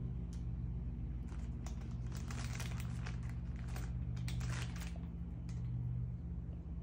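Plastic candy wrapper of Smarties Squishies crinkling as it is handled and opened. There is an irregular run of crackles from about a second in until about five seconds in, over a steady low hum.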